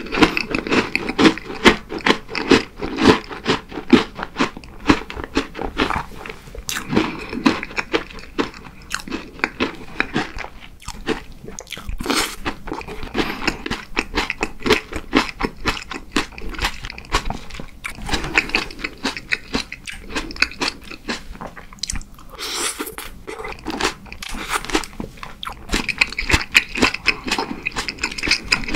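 Close-miked chewing of a mouthful of cream cake: rapid, wet mouth clicks and smacks that keep coming without a break.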